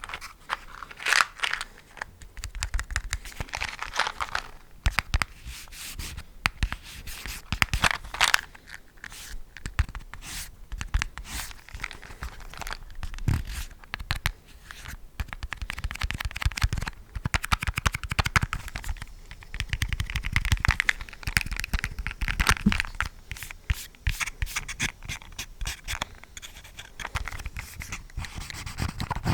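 Close-miked ASMR trigger sounds: irregular scratching and rubbing with many small crackling clicks, coming in waves every few seconds.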